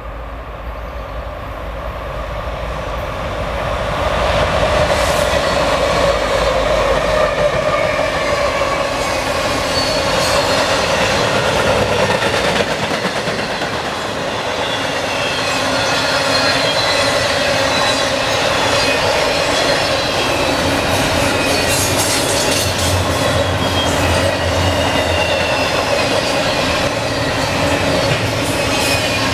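Norfolk Southern double-stack intermodal freight train passing close by. Its sound builds over the first few seconds as it arrives, then the cars roll past with a steady roar and several whining wheel squeals that drift slowly down in pitch. Sharp rail clicks come thicker near the end.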